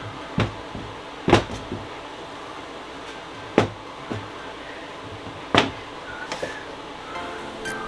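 Bars of cold-process soap set down and nudged on a stainless steel table: about four sharp knocks a second or two apart, with a few softer taps between. Music fades in near the end.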